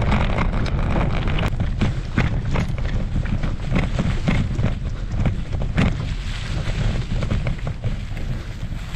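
Wind buffeting the microphone of a camera on a gravel bike, over the rumble and crunch of the tyres on a dirt track, with frequent small knocks and rattles as the bike rides over rough ground.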